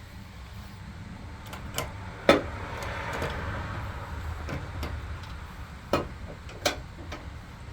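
Scattered sharp metallic clicks and knocks of hand tools and parts being handled at a riding mower's deck, with light rustling and scraping between them. The loudest knock comes about two seconds in.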